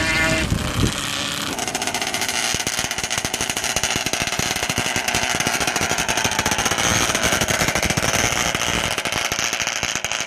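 Three-wheeler ATV engine at full throttle in a sand drag run, its exhaust a rapid rattling stream of firing pulses that sets in loud about a second and a half in and runs on.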